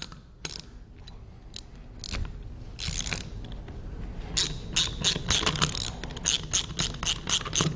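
Socket ratchet clicking as a 3/4-inch long socket is worked to break loose a tight stem guide. It makes a few scattered clicks and a brief scrape, then an even run of rapid clicks, about five a second, from about halfway through.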